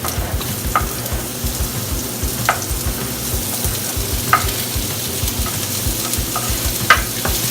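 Zucchini sizzling in hot olive oil in a frying pan while it is stirred, with a few sharp clicks of the utensil against the pan.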